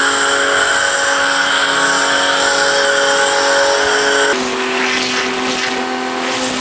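Agaro Grand 1500-watt electric pressure washer running, its motor-pump whining steadily under the hiss of the spray as it sprays shampoo foam from the foam bottle. About four seconds in, the whine steps down slightly in pitch and the spray hiss changes as spraying switches to the plain lance.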